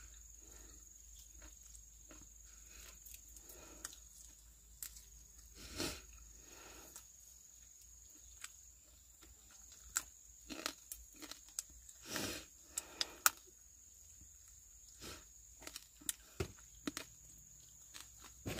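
Irregular crunching, rustling and sharp clicks of varying loudness, over a faint steady high whine.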